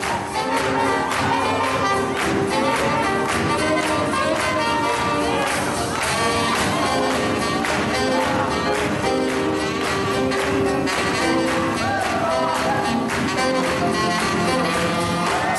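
Swing jazz played by a band, horns carrying the tune over a steady beat.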